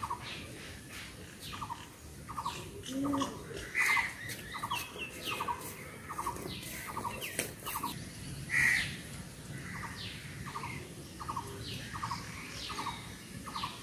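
Birds chirping outdoors, with two louder calls about four and nine seconds in, over a short pulsed call that repeats about twice a second.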